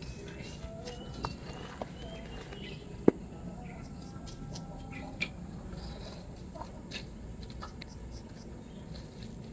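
A kitchen knife and hands working in dry, coarse potting medium: light scratching and rustling with scattered small clicks, and one sharp click about three seconds in.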